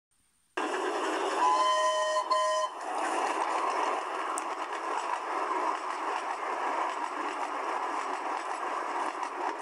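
Steam locomotive sound starting about half a second in: two short whistle blasts, a few tones together, at about a second and a half, over a steady noise of the train running.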